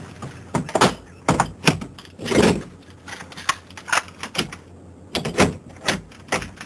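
Brass door locks (chain locks, slide bolts and latches) being fastened one after another: a quick run of sharp metal clicks and clacks, with a longer rattle about two and a half seconds in.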